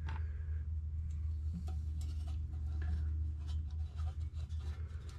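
Light metallic clicks and scrapes of steel washers and nuts being put on by hand and spun onto the studs of a VW Beetle generator fan housing, scattered irregularly over a steady low hum.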